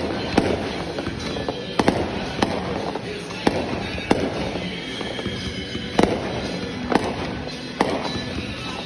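Aerial fireworks bursting: about nine sharp bangs at irregular intervals, roughly a second apart, over a constant noisy background.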